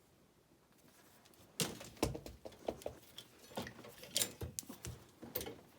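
Metal bike locks and cables being handled: scattered clinks, knocks and rattles starting about a second and a half in.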